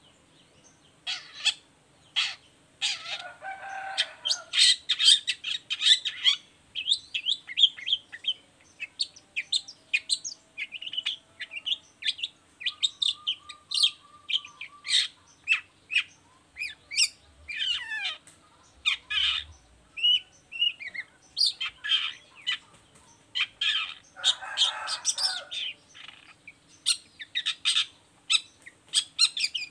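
Long-tailed shrike (cendet) singing a fast, varied song of short sharp chirps and quick whistled notes, broken by a few harsh raspy bursts and a short even trill.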